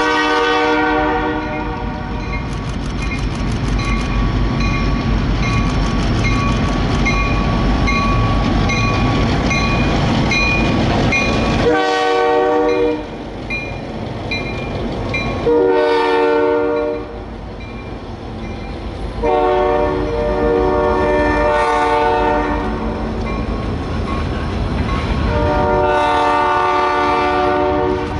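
EMD GP-series diesel locomotives passing close by, engines running and wheels rolling over the rails, with a bell ringing in quick even strokes. A horn blast ends just after the start, and about 12 seconds in the air horn sounds four more blasts, the third the longest, as the freight cars roll past.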